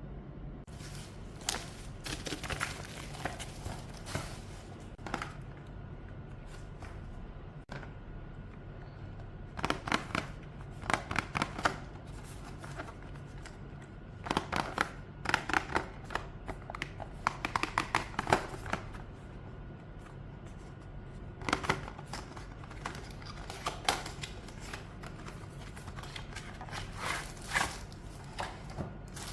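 Rustling and clicking from handling packaging and a keyboard cable, coming in several short bursts of quick clicks with quieter stretches between them.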